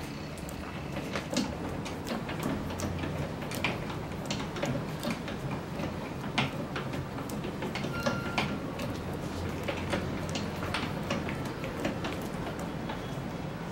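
Irregular light clicks and knocks from handling at a roller printing press, over a steady low hum.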